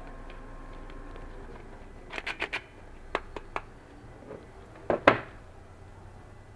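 Small clicks and knocks from handling a bagged metal airsoft magazine and a tool on a wooden workbench. There is a quick run of four clicks about two seconds in, three lighter clicks a second later, and a louder double knock about five seconds in.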